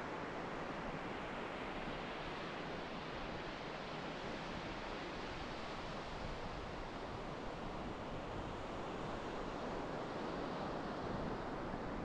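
Ocean surf breaking and washing onto a sandy beach: a steady rushing wash that swells gently twice.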